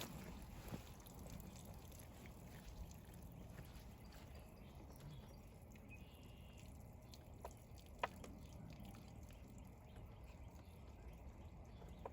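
Near silence: faint low background noise, with two small sharp clicks about seven and a half and eight seconds in, the second the louder.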